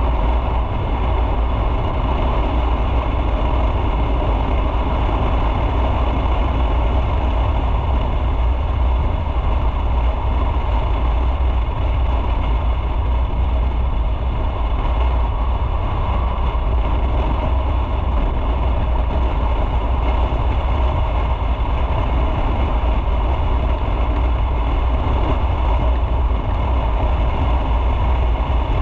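Motorcycle engine running steadily, with a heavy low rumble and no pauses or gear changes that stand out.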